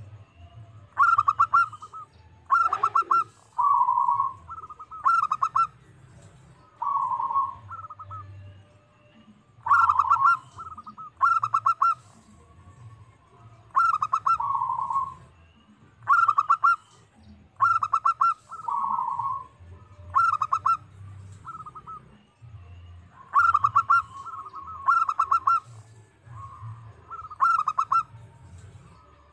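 Zebra dove (perkutut) singing its cooing song over and over: each phrase is a quick run of rolled staccato notes, sometimes ending in a lower held coo, repeated every second or two with short pauses.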